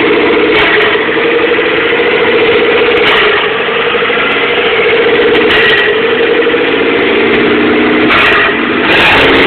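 Mitsubishi 4G63T turbo four-cylinder idling rough and surging, the idle rising and falling a little, its exhaust open after the turbo with no downpipe. The cause of the surge is unknown to the owner; the car runs with the idle air bypass plated off, the EGR blocked off and the vacuum lines removed.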